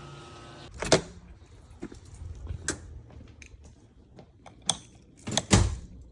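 A steady hum stops right at the start. Then come irregular sharp clicks and knocks, the loudest about a second in and a close pair near the end.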